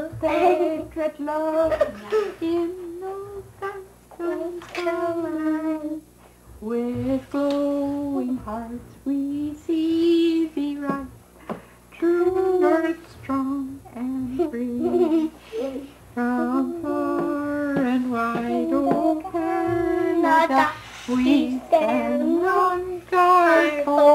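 A woman and two young children singing a song together without accompaniment, in held, melodic phrases with short breaks between lines.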